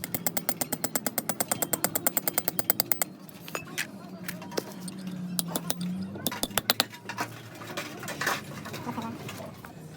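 A power tool hammering rapidly on metal, about ten strikes a second for roughly three seconds, followed by a few separate metal knocks.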